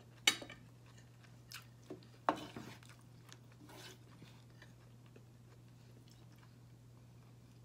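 A metal spoon knocking and scraping against a pot of stewed chicken livers and gizzards as pieces are scooped up, with soft chewing. Two sharp clicks come in the first two and a half seconds and a few lighter ones follow, then only a low steady hum is left.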